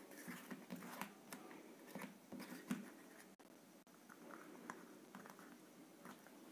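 Faint taps and rubs of two cardboard matchboxes being handled and pressed together on a tabletop, with a cluster of small clicks in the first three seconds and only scattered soft ones after.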